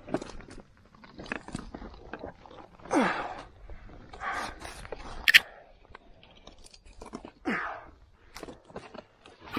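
A climber breathing hard while scrambling on granite. Effortful exhales fall in pitch, about one every four seconds, amid scuffs and scrapes of hands and clothing on rock. A sharp click or clink comes about five seconds in.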